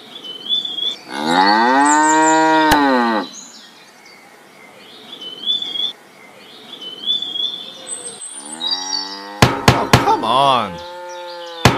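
A cow mooing: one long moo about a second in that rises and falls in pitch, then a second moo later on, with a few sharp clicks around it near the end. Faint high chirps come and go underneath.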